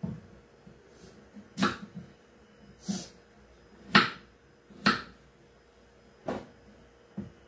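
Kitchen knife cutting a peeled potato and knocking on a wooden chopping board, about seven separate sharp knocks spaced roughly a second apart.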